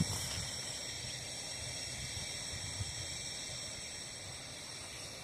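Low rumble of a departing freight train slowly fading away, under a steady high-pitched insect chorus.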